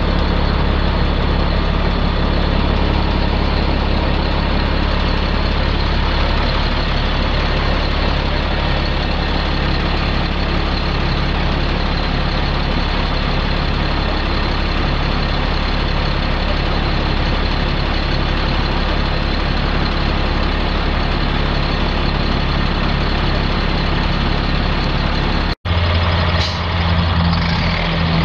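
Caterpillar C7 inline-six turbo diesel of a 2007 Sterling L-Line dump truck running steadily. About 25 seconds in it cuts off abruptly, and a different engine sound follows.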